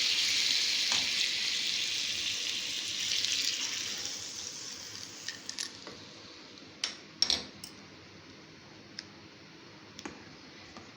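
Hot tempering oil sizzling, the hiss dying away over the first five seconds or so. After that come a few sharp clinks of metal utensils against a pan.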